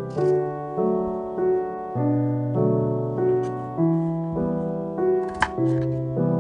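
Background piano music: a gentle solo piano melody over held bass notes. A short sharp click comes about five and a half seconds in.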